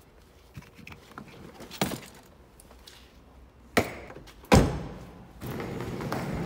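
A few light knocks, then two heavy thunks of car doors being shut, under a second apart, the second the loudest. A steady noise with a low hum sets in near the end.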